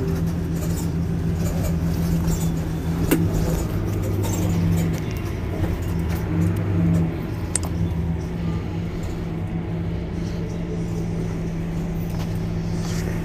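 Mercedes-Benz Citaro C2 Hybrid city bus's diesel engine idling steadily at a stop, a low even hum, with a sharp click about three seconds in.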